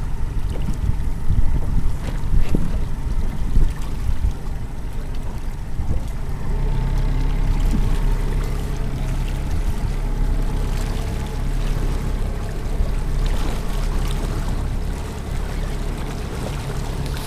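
Small motorboat under way: a low engine hum with water rushing along the hull and wind buffeting, the engine tone steadying from about six seconds in.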